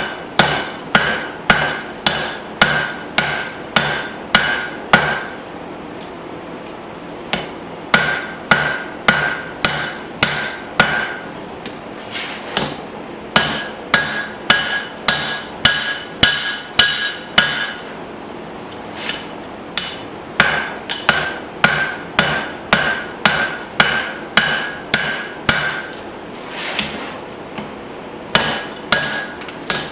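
Straight peen hammer striking hot spring steel on an anvil, in runs of about two ringing blows a second broken by short pauses, as the forging's shape is refined. A steady background hiss runs under the blows.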